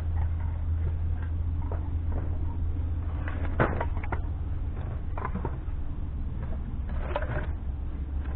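Split firewood pieces knocking and clattering against each other as they are picked up off a trailer, with one sharp knock about halfway through the loudest, over a steady low rumble.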